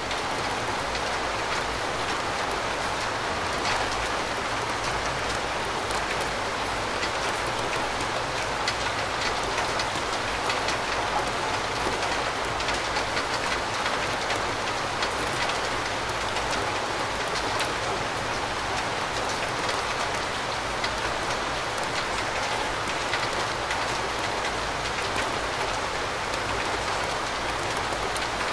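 Steady rain falling: an even hiss of rainfall dotted with many small ticks of individual drops, holding at the same level throughout.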